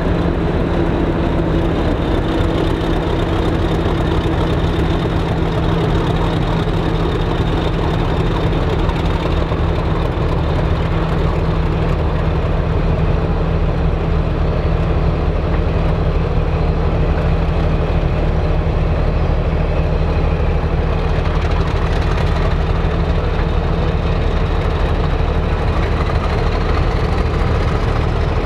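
Class 50 diesel locomotive's English Electric 16-cylinder engine running at a steady, even note as the locomotive hauls a train of coaches slowly past.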